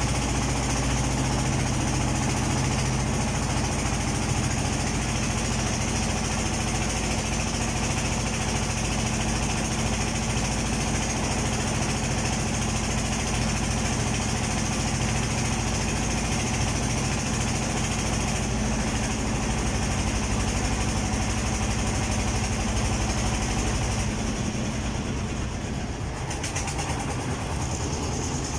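A boat's inboard engine running steadily with a low, even hum, under wind and the rush of water along the hull. The low hum fades a little near the end.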